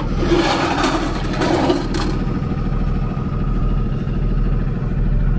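Super C motorhome's diesel engine idling steadily while the rig sits stopped on a wheel scale. A hiss runs for about two seconds near the start and cuts off sharply.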